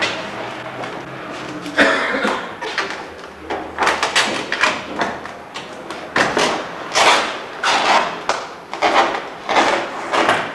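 A run of short, rough scraping or rustling strokes, irregular, about one or two a second.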